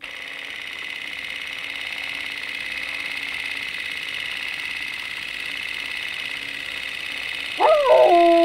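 Logo sound effect: a steady film-projector whirr with a fine flutter, slowly getting louder. Near the end a dog's howl bends up and then down and settles into a long held note.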